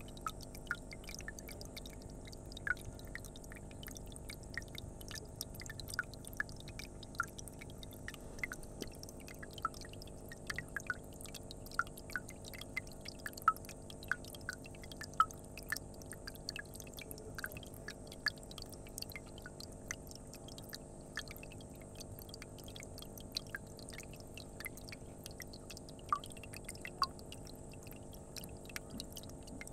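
Water dripping and trickling into a small medaka pond: irregular little drips and plinks a few times a second over a faint steady hum.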